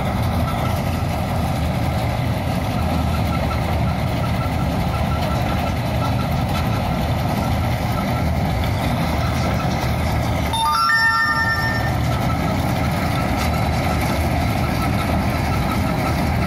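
Combine harvester's diesel engine running steadily while harvesting corn, with a short high-pitched beep about eleven seconds in.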